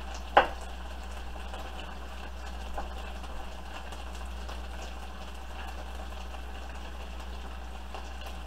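Beef chunks sizzling steadily in a frying pan under a low hum, with one sharp knife chop on a wooden cutting board about half a second in and a lighter knock near three seconds.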